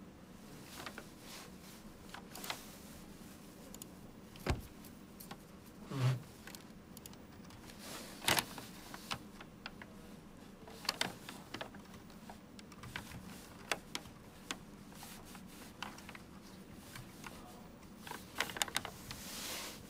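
Faint handling noise of a phone being tapped and moved about while searching for a song: scattered soft taps and clicks, a few louder ones, and a quick run of clicks near the end, over a low steady room hum.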